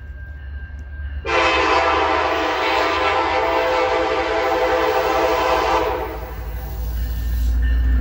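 Approaching EMD F59PH diesel locomotive sounding one long blast on its horn, a chord of several tones lasting about four and a half seconds. After the horn, the locomotive's engine rumble grows louder as it closes in.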